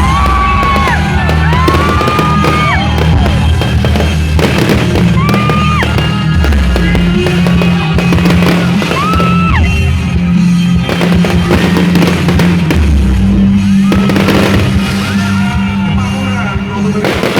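Fireworks going off in many sharp bangs and crackles over loud music with a heavy, steady bass line.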